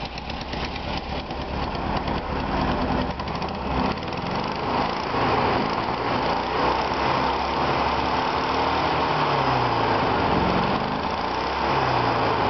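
Volkswagen Type 3 air-cooled flat-four engine running after long dormancy. It is a little ragged at first, then settles into a steadier, louder run. In the second half the revs fall and rise a few times as the throttle is worked by hand at the carburettor.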